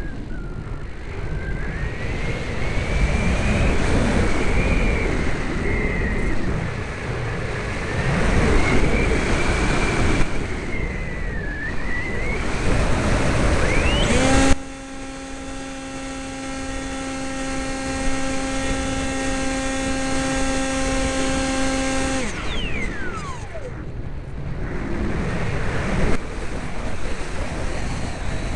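Sky Surfer RC plane's electric motor whining with wind rushing over the mic. The pitch wanders as the throttle changes, then holds one steady tone for several seconds from about halfway, and falls away as the throttle comes off.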